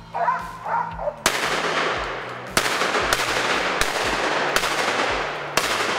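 Hunting dogs bark a few times in the first second. Then a loud, steady rushing, crackling noise starts suddenly, with a soft knock about once a second.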